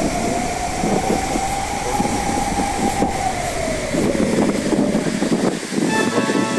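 Steady rush of a waterfall. Over it, for the first four seconds or so, a long held tone drifts slightly up and then down before it fades.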